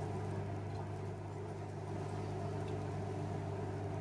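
Eggs frying gently in a pan on low heat: a faint even hiss under a steady low hum.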